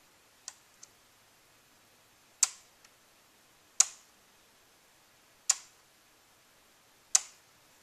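Model railway turnout's solenoid switch machine snapping over four times, about one and a half seconds apart, as it is thrown back and forth from the phone controller. Two fainter clicks come just before them.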